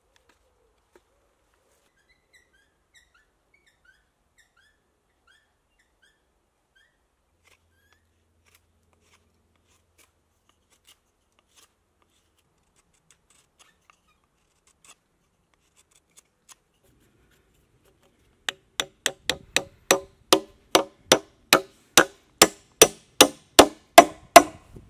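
A hammer driving a wooden dowel peg into a hole in a log: about twenty sharp, ringing knocks, roughly three a second, growing louder, starting after a long near-silent stretch.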